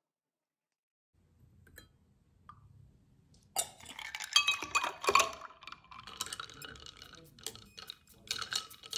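Ice cubes and a long spoon clinking against a tall glass as iced coffee is stirred. The clinking starts about three and a half seconds in, is thick at first, then goes on in looser clinks.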